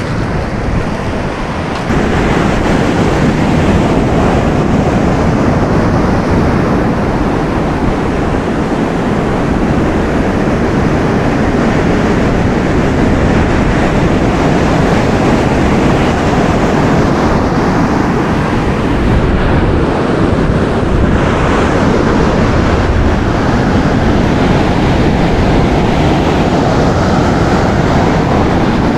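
Wind buffeting the microphone over the steady wash of surf breaking on a beach, stepping up in loudness about two seconds in.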